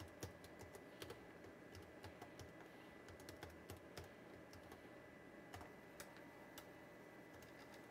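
Faint, irregular keystrokes on a computer keyboard: the INITIALIZE command being typed into HP BASIC to format a floppy disc.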